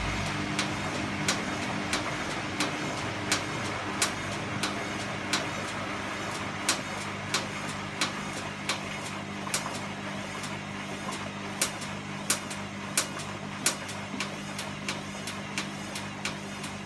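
A vehicle's engine running steadily with a sharp, regular clicking, about three clicks every two seconds.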